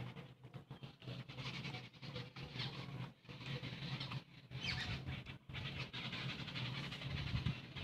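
Close-up mouth sounds of a person eating rice and fish by hand: irregular wet chewing and lip smacks, with soft squishing as fingers mix rice on a metal plate, over a steady low hum.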